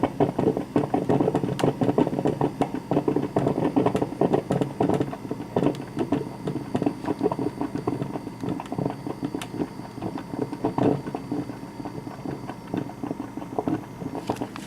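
1987 Black & Decker thermal carafe drip coffee maker brewing: rapid, irregular gurgling and sputtering over a faint steady hum, easing off slightly toward the end.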